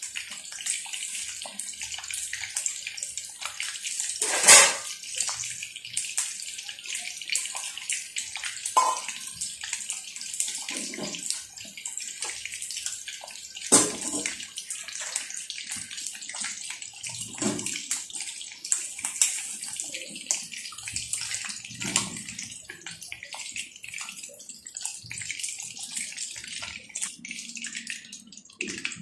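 Marinated chicken lollipops deep-frying in hot oil: a steady sizzle thick with crackles, with a few knocks of a utensil against the pan, the loudest about four seconds in and another about halfway.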